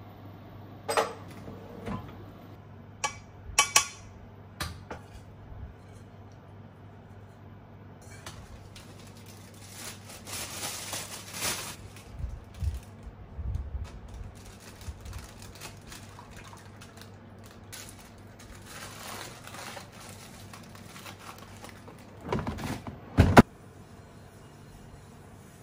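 Dishwashing sounds: light clinks of a spoon and dishware, then stretches of water and sponge scrubbing as a pan is washed at the sink, with a sharp clatter of dishes near the end. A low steady hum runs underneath.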